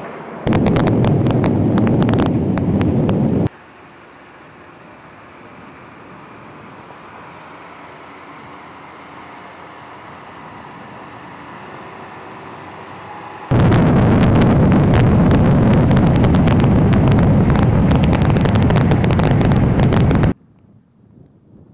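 Vehicle noise in two loud stretches, each with dense crackling and each cut off abruptly, with a quieter steady rumble between them.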